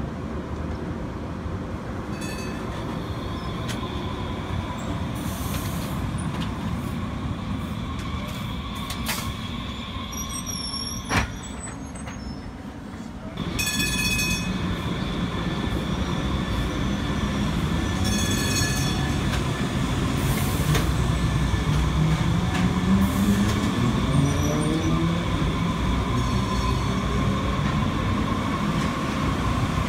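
Muni light rail train running at street level: a steady electric drive hum with thin high-pitched squealing tones from the wheels, and one sharp click a little before halfway. The sound jumps louder about halfway through as a two-car train rolls through a turn at an intersection, with a motor whine rising in pitch near the end.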